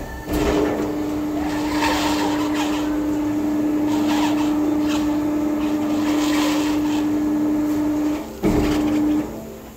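Truck tyre changer's electric motor running steadily with a constant hum as it turns the clamped wheel to work the tyre bead off the rim, with a few scrapes along the way. It stops about 8 seconds in, runs again briefly, and stops just before the end.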